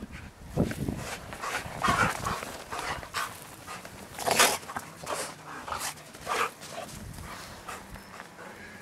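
Two giant schnauzers play-fighting in deep snow, making short dog sounds in quick, irregular succession, the loudest about four and a half seconds in.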